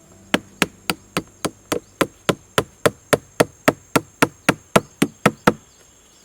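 Rapid, evenly spaced knocking, about twenty sharp strikes at nearly four a second, stopping about three-quarters of a second before the end, like something being struck repeatedly while making a wooden trap. A faint steady high whine runs underneath.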